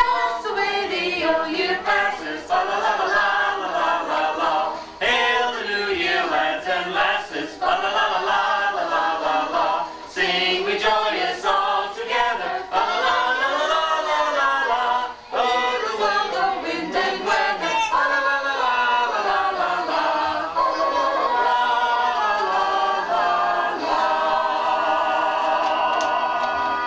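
A family group of men, women and children singing a Christmas carol together, unaccompanied, holding a long note near the end.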